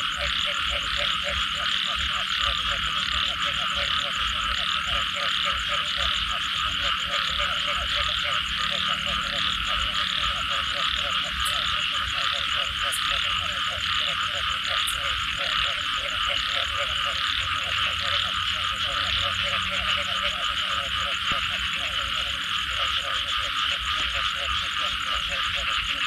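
Dense chorus of many frogs calling together after rain: an unbroken mass of croaks with a lower layer of fast, rhythmically repeated calls.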